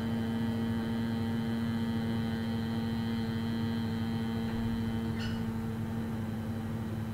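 A man chanting Om, holding the closing "mmm" as a steady closed-mouth hum at one unchanging pitch, the breath slowly running out.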